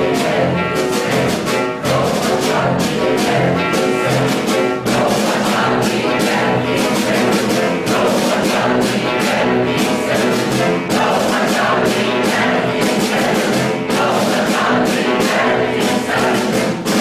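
Live concert performance of a choral work: a large choir with piano, clarinet and percussion such as marimba and timpani, playing continuously.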